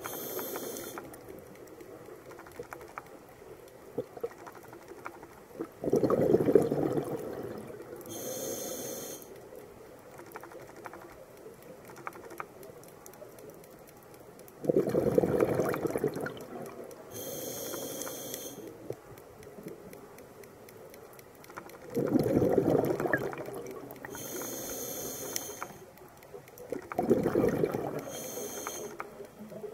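Scuba diver breathing through a regulator underwater: slow breaths, each a short high hiss of inhaled air followed by a loud burst of exhaled bubbles a couple of seconds long, four bubble bursts in all, with quiet water in between.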